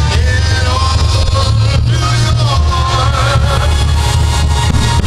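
Rock-style music with a singing voice over a heavy, steady bass line.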